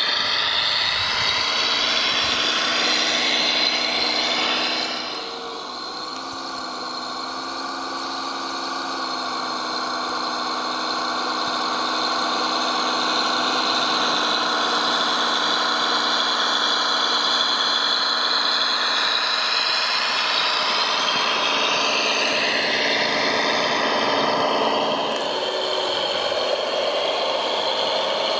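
Radio-controlled Claas Xerion 5000 model tractor, a rebuilt Bruder toy, driving through snow. Its motor and drivetrain whine steadily, the pitch rising and falling as it speeds up and slows down. The sound drops briefly about five seconds in.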